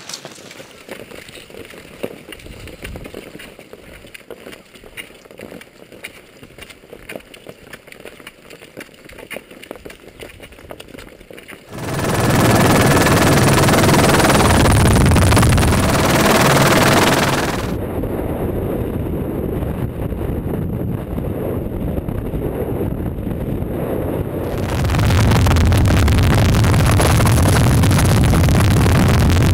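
Skis and poles crackling and clicking on snow for about twelve seconds. Then a helicopter's rotor noise and wind cut in suddenly, loud with a deep steady rumble. The noise eases for several seconds and comes back at full strength near the end.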